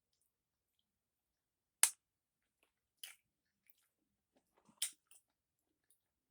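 Close-miked mouth sounds of someone eating frog legs: sparse wet smacks and clicks, the loudest about two seconds in, with two more near three and five seconds.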